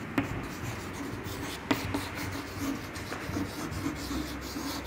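Chalk writing on a chalkboard: scratchy strokes with a couple of sharp taps as the chalk meets the board.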